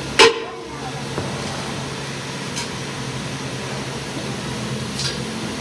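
A single sharp metal clang with a brief ring, then a steady machine hum with a couple of faint clicks, typical of metalwork on a truck axle.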